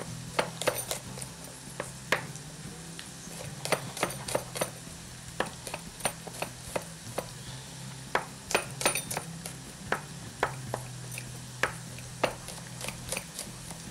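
Kitchen knife roughly chopping garlic cloves on a wooden chopping board: irregular knocks of the blade hitting the board, some much sharper than others, over a steady low hum.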